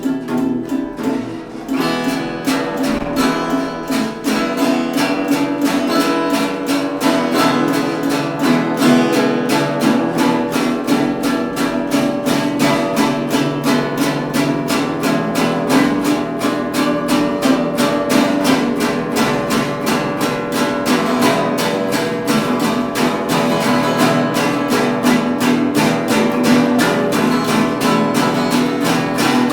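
Acoustic blues played by a small band: strummed acoustic guitar with a steady rhythmic pulse, the fuller band coming in about two seconds in.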